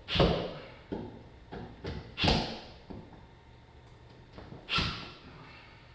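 A series of hard knocks and thuds, about five, the loudest near the start, about two seconds in and near the end, each ringing out briefly.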